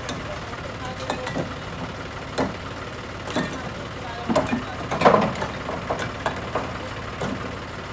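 Diesel tractor engine idling with a steady low throb, while fired clay bricks clack against each other about once a second as they are tossed down and stacked; the loudest clatter comes about five seconds in.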